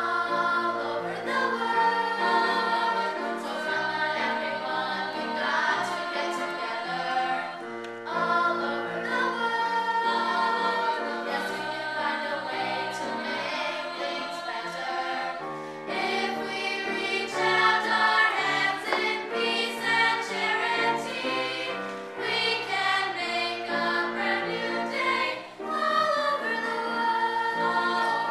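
Girls' chorus singing a song in unison and harmony, with piano accompaniment carrying the low notes.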